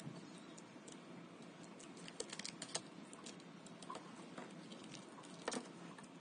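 Keys of an 82-key Ajazz mechanical keyboard being pressed and handled: scattered clicks, a quick cluster about two seconds in and one louder click near the end, over a steady background hiss.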